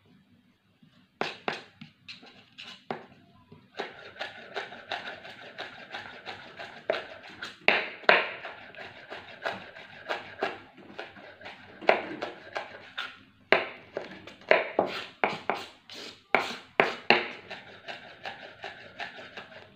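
Chef's knife slicing ginger into julienne on a cutting board: irregular sharp knocks of the blade hitting the board, one to a few a second.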